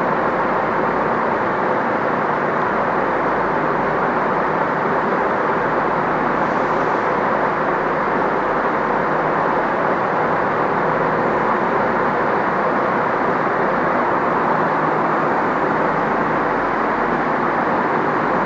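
Diesel multiple-unit trains standing at the platforms with their engines idling: a steady, even drone that does not change.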